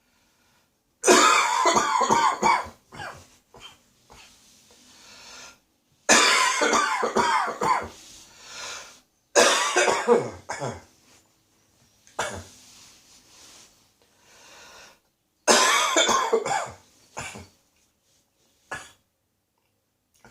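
A man coughing from a cold in repeated fits of several rapid coughs each, a few seconds apart, with breaths drawn in between and one last single cough near the end. The cough is settling deeper into the throat.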